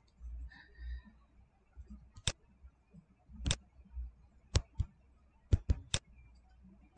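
Computer mouse clicking: about seven sharp, separate clicks, spread from about two seconds in to the end, over a faint low hum.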